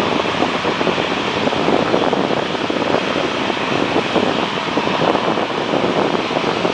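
Steady rushing jet noise from a Boeing 777-300ER's GE90 turbofan engines as the airliner rolls past, mixed with wind buffeting the microphone.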